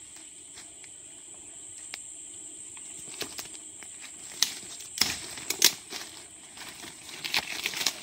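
Footsteps crunching through dry leaf litter on a rainforest floor, with stems and leaves brushing and twigs cracking. A few sharp cracks come about halfway in and a quicker run of rustling comes near the end, over a steady high-pitched drone.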